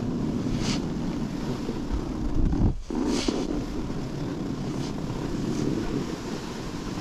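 Wind rumbling on the microphone, with brief hissing scrapes of snowboard edges sliding over snow, once under a second in and again about three seconds in.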